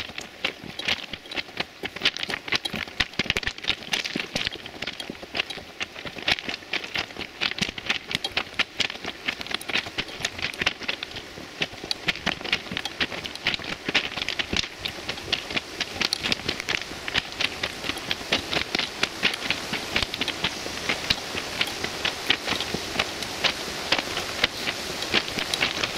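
Footsteps crunching on railway track ballast, a dense irregular run of stone clicks several times a second, with a steady hiss that builds toward the end.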